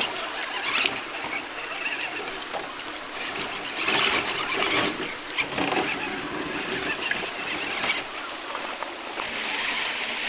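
Radio-controlled scale crawler truck driving through a shallow rocky creek: a thin, high electric-drive whine over running and splashing water, with louder splashes about four to five seconds in.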